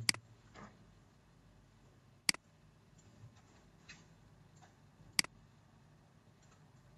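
Computer mouse clicking: three sharp single clicks a few seconds apart, with a few fainter clicks between them.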